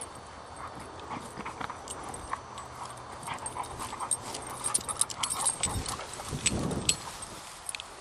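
Dogs moving about, with a scatter of irregular clicks and taps and a brief low rumble about six seconds in.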